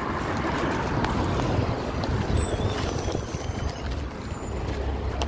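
NefAZ 5299 low-floor city bus pulling in to a stop: a steady low engine and road rumble, with thin high-pitched brake squeals about two seconds in and again near the end as it slows.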